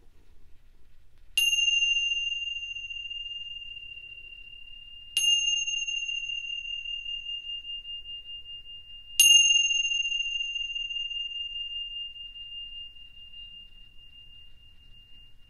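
A pair of tingsha cymbals struck together three times, about four seconds apart, each strike a bright, high ring that fades slowly and is still sounding when the next comes.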